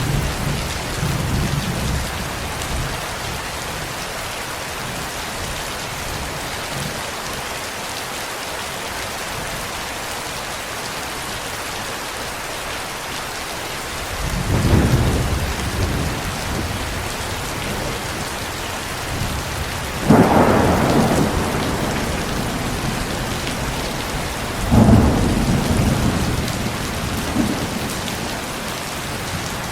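Steady rain falling with rolls of thunder. A low rumble dies away over the first few seconds. Three more rolls follow in the second half, the loudest and sharpest of them in the last third.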